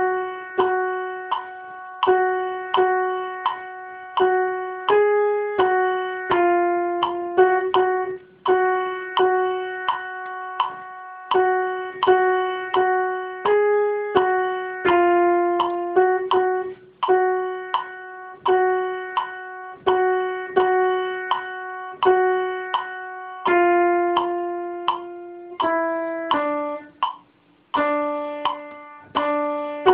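A piano playing the alto line of a choral hymn alone, one note at a time at a slow, steady pulse of about one note a second, each note fading away before the next, with no voices.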